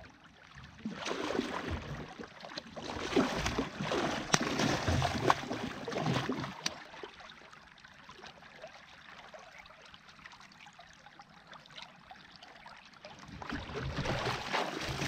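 Water splashing and sloshing at the side of a fishing kayak as a hooked smoothhound is drawn alongside in a strong tide. The splashing is busiest in the first half, dies down in the middle, and picks up again near the end as the fish is grabbed at the surface.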